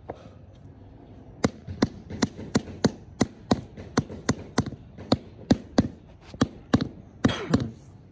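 Rubber mallet tapping a paving tile down into its sand bed to seat it level: a quick run of sharp knocks, about three a second, starting a second and a half in. Near the end comes a short rustling scrape.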